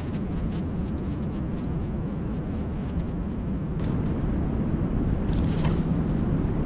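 Wind buffeting the microphone: a steady low rumble, with a brief louder whoosh of hiss about five and a half seconds in.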